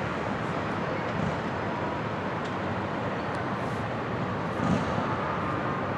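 Steady city street noise: an even, continuous wash of traffic sound with no distinct events.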